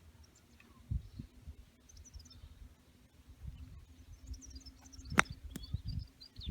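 Birds chirping in short high calls over a low rumble, with one sharp click about five seconds in and a fainter one just after.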